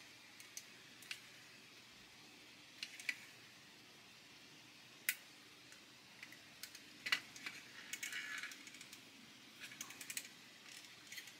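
Faint, scattered small clicks and taps of hard plastic model-kit parts and metal tweezers as the parts are handled and pushed together, with a short rustle about eight seconds in.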